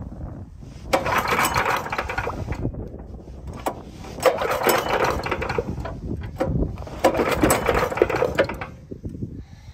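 Small engine of a motorized towing sled being cranked over three times, each turn-over lasting about two seconds, without firing. The spark plug is out, after oil poured from the plug hole.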